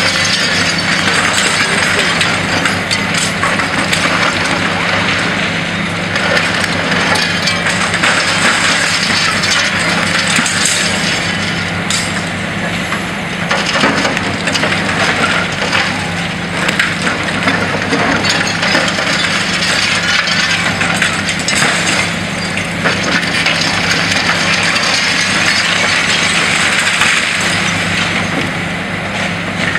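High-reach demolition excavator's crusher jaws biting into a concrete office block: continuous crunching and cracking of concrete and clattering of falling debris, over a steady low drone from the machine.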